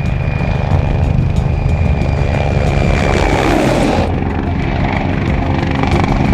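Mi-24 attack helicopter's twin turboshaft engines and rotor running: a steady low rotor drone with a thin high turbine whine over it.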